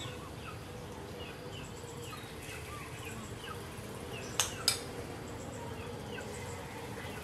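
A bird chirping over and over in short rising and falling notes, over a faint steady hum. Two sharp clicks come close together a little past the middle and are the loudest sounds.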